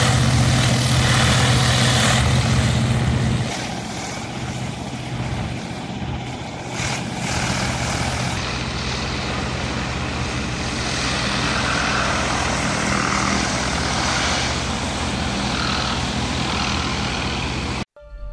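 Pressure washer running: a steady engine drone under the hiss of the water jet. The low drone drops away about three and a half seconds in, leaving a steady hiss.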